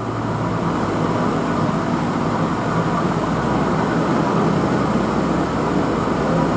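QR 2000 class diesel rail motor running on the climb, a steady rumble of engine and wheels on the rails with a low drone, fading up slightly at the start.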